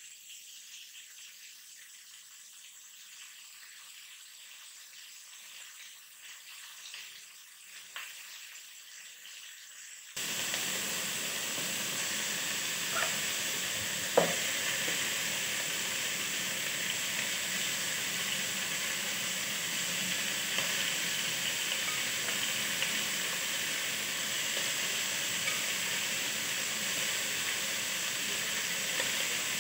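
Bone-in mutton pieces frying in oil in a wok: a steady sizzle as the meat is seared half-cooked, faint for about the first ten seconds, then suddenly much louder. One sharp knock of the utensil against the pan comes about halfway through.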